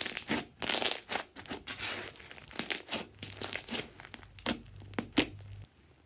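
Pink slime being pressed and kneaded by hand under a balloon skin: a close, quick series of sticky crackles and pops, stopping abruptly near the end.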